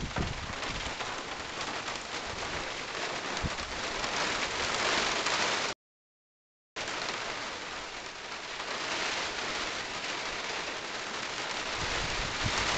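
Steady hiss of rain and gusting wind in a supercell storm, with wind buffeting the microphone at the very start. The sound cuts out completely for about a second midway.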